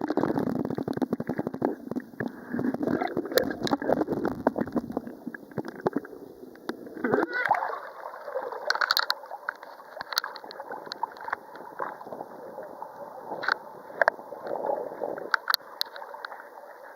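Seawater sloshing and splashing close by, with a stream of small irregular splashes and gurgles.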